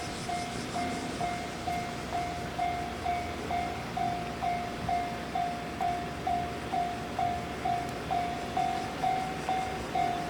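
Japanese railway level-crossing warning alarm ringing its repeated electronic 'kan-kan' tone, about two dings a second, each ding fading quickly, signalling that a train is approaching.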